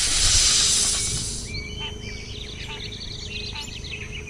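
Logo-sting sound design: a loud hissing whoosh that fades out about a second and a half in, followed by birds chirping and calling over a low rumble.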